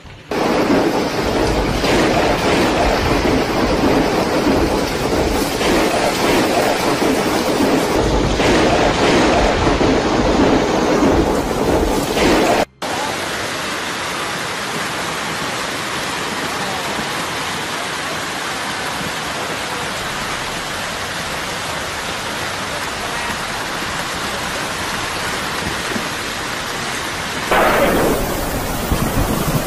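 Large hailstones pelting down in a dense, steady roar of impacts, with a deep rumble underneath. The sound breaks off for an instant about a third of the way in, then goes on as a steadier, slightly quieter downpour of hail and rain.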